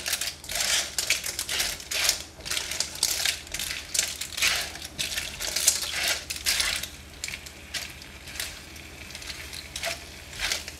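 Cooked lala clam shells clattering against each other and the wok as they are tossed and stirred with a spatula: irregular clacks in quick bursts, quieter over the last few seconds.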